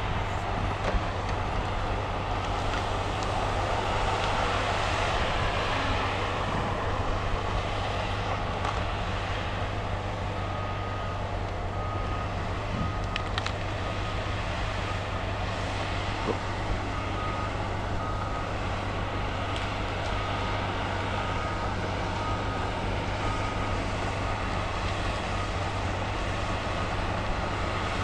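Cat 568 shovel logger's diesel engine running steadily with a low hum, while its travel alarm beeps roughly once a second from about ten seconds in until near the end.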